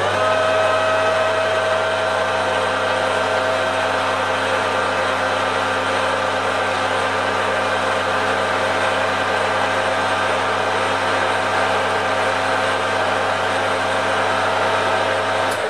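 Metal lathe running at a steady speed, its motor and spindle giving an even hum with a steady whine. A loose bush spins in the chuck while a ball-bearing roller tool presses on its face to true it up. The noise stops right at the end as the lathe is switched off.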